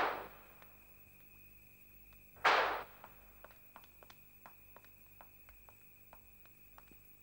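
Two sharp, noisy hits about two and a half seconds apart, each dying away over half a second, the second the loudest. Then the light, irregular footsteps of two people walking on a hard corridor floor, over a faint steady high tone.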